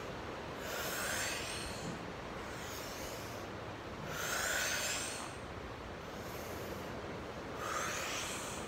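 A woman breathing audibly through the mouth in a slow, even rhythm during a flowing yoga sequence: three strong breaths, the loudest about four seconds in, with softer breaths between them.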